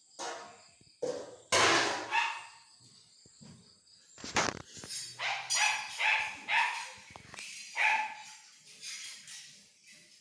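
A series of about a dozen short, sharp animal calls, loudest about a second and a half in.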